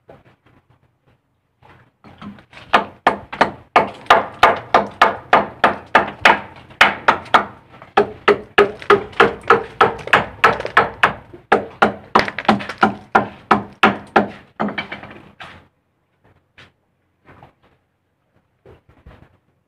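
Rapid, regular knocking: sharp strikes about three times a second that ring briefly, lasting some thirteen seconds, then a few scattered taps near the end.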